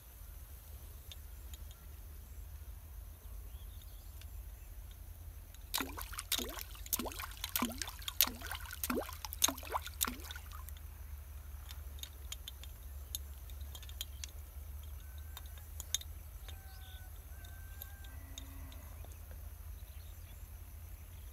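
A hooked fish thrashing at the pond surface as it is pulled in: a quick run of about nine or ten splashes lasting some four seconds, a few seconds in.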